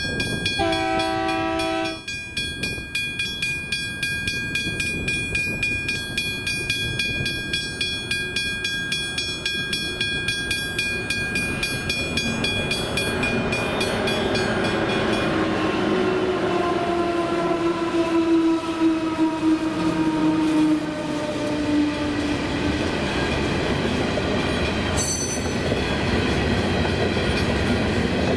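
Level crossing bell ringing rapidly and steadily. A short locomotive horn blast sounds about half a second in, and later a long horn sounds as the diesel locomotive approaches and passes, its pitch slowly falling. Loaded coal hopper wagons then roll by over the crossing, getting louder.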